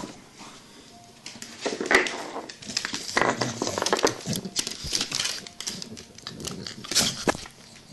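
Staffordshire bull terrier puppies at play on a wooden floor: scuffling, with claws clicking and pattering in irregular spurts and a few short dog noises. The loudest spurts come about two seconds in and near the end.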